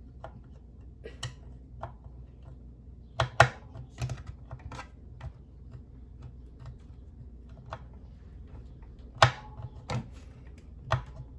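Irregular clicks and taps of a metal screwdriver tip knocking and slipping on the screws of a hoverboard's wheel axle clamp, the screwdriver not seating in the screw heads. A few louder knocks come about three seconds in and again near the end.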